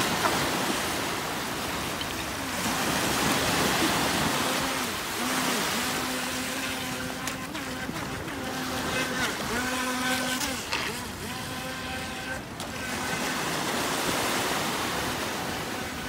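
Feilun FT009 RC speedboat's brushless electric motor whining at a steady pitch, cutting in and out in short bursts as the throttle is worked, over the wash of small waves.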